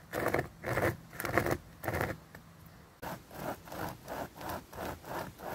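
Hand saw cutting through wood, rasping back and forth: slower strokes at first, a short pause about two seconds in, then a quicker steady rhythm of about three strokes a second.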